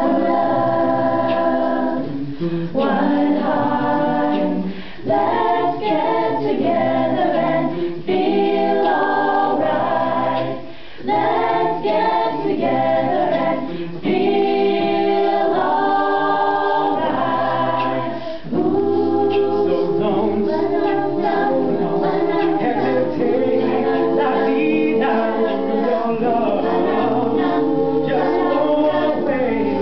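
A mixed group of men's and women's voices singing a song a cappella in harmony, a low bass part held under the chords. The singing goes in phrases with short breaks between them.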